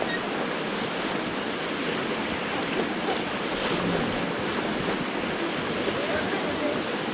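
River rapids rushing steadily around a raft.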